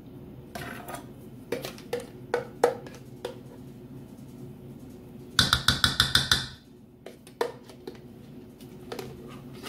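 Knocks and taps of a jar of mayonnaise being worked over a mixing bowl as the mayo is scooped and dropped in: a few separate knocks in the first three seconds, then a quick run of about ten rapid taps about five and a half seconds in.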